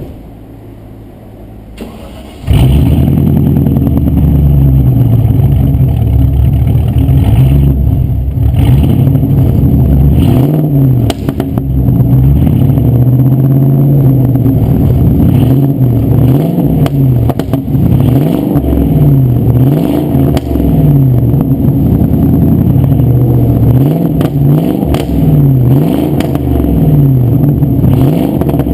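Range Rover P38's 4.6-litre V8 engine running, quiet at first and then suddenly much louder about two and a half seconds in. It is then revved over and over, the pitch rising and falling with each blip of the throttle.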